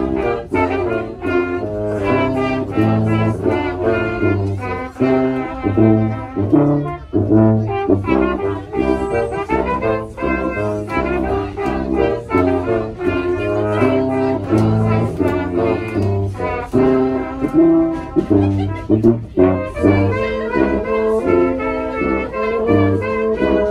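Small brass band playing a tune live, with a tuba's low bass notes under the melody of smaller upright brass horns.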